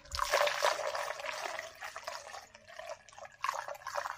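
Coolant poured from a jug through a funnel into the engine's cooling system, splashing and trickling unevenly; loudest at first, with another surge near the end.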